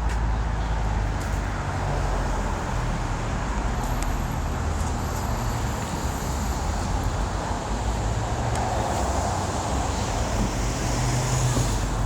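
Pressure washer running steadily, its engine a low drone under a constant hiss of water spray, rinsing off foamed cleaning solution.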